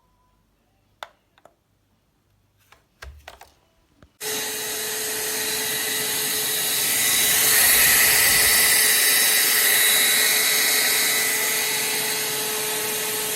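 Gtech Multi Platinum cordless handheld vacuum cleaner: a few plastic clicks and knocks, then it switches on suddenly about four seconds in and runs with a steady motor whine and rushing airflow, growing louder for a few seconds in the middle.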